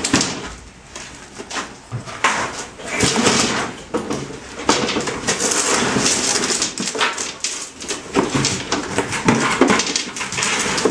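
A converted ice fishing sled, a plastic tub on a metal frame, being dragged and knocked through a doorway and set down on a concrete floor: a run of irregular scrapes, bumps and clatters.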